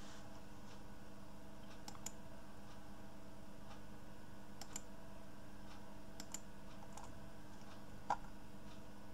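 Scattered clicks of a computer keyboard and mouse: a handful of single and paired clicks spread over several seconds, the sharpest about eight seconds in, over a faint steady hum.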